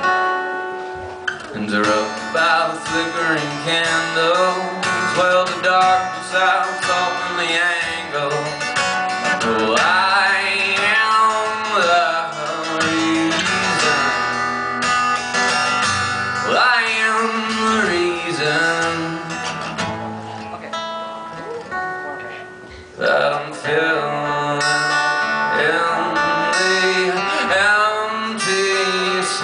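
A man singing live, accompanying himself on a strummed acoustic guitar.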